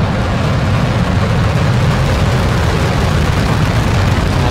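Falcon 9 first-stage engines at full thrust just after liftoff: a loud, dense, steady low rumble of rocket exhaust.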